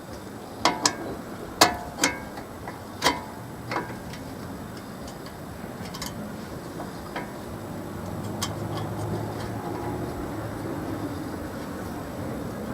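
Sharp metallic clicks and taps, about six of them in the first four seconds, as a metal part is fitted onto a Lada Niva front brake caliper. A low steady hum then grows a little stronger in the background.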